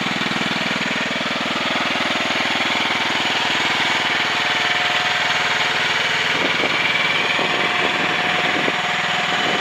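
The engine of a CFG Industry MX15RX mini excavator running steadily with a rapid, even firing pulse. A steady higher whine joins after about five seconds, and a few short knocks come between six and nine seconds in.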